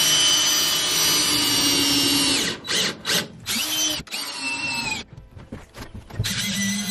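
DeWalt cordless drill driving screws into wooden boards. The motor whines steadily for about two and a half seconds, then runs in several shorter bursts with pauses between them.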